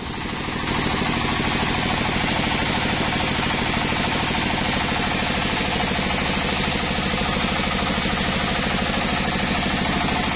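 Stationary engine of a sawmill running steadily with a rapid, even chugging, not under cutting load.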